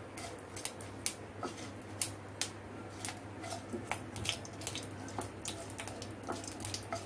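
Mustard seeds spluttering in hot mustard oil with a dried red chilli: irregular sharp pops and crackles several times a second as the tempering fries.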